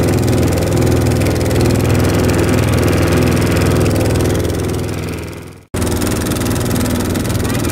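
Motor of a small wooden sea boat running steadily under way. The sound fades and drops out briefly near the end, then comes back at once.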